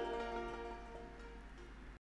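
Background music of plucked strings, its notes dying away as it fades out, then cutting off at the end.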